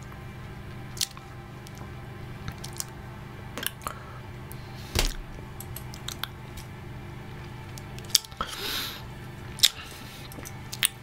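A low steady hum with scattered small clicks from close-up handling and mouth noises, a louder click and low thud about five seconds in, and a short soft hiss a little past the eight-second mark.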